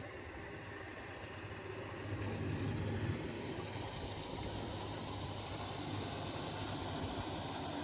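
Boat motor running steadily at slow trolling speed, a low hum over wind and water noise, swelling a little about two seconds in.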